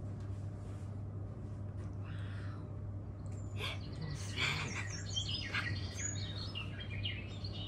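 Recorded birdsong, many short high chirps and trills from the soundtrack of a projection-mapped dinner show, starting about three and a half seconds in over a steady low hum.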